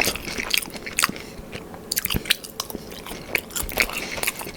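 Close-miked chewing of crispy buffalo cauliflower wings: irregular crunches and mouth clicks.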